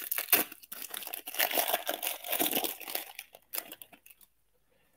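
Wrapper of a 1998 Topps Chrome football card pack being torn open and crinkled in the hands: a dense crackle that stops about four seconds in.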